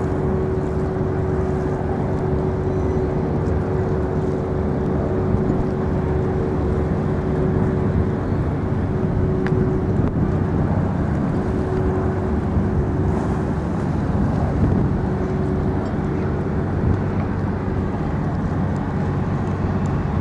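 Steady low rumble of city traffic and machinery, with a steady hum that fades out about sixteen seconds in.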